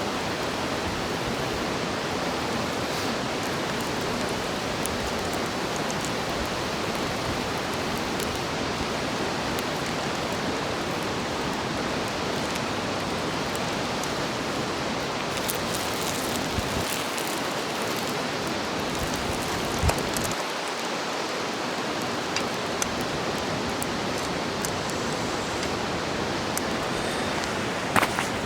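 Bacon yakisoba frying on an iron plate: a steady sizzling hiss with a few sharp pops.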